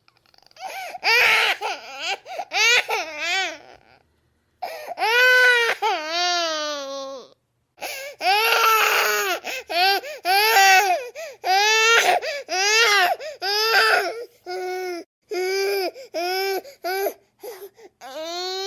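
A baby crying in a run of high-pitched wailing cries, each rising and falling in pitch, broken by a couple of short gaps.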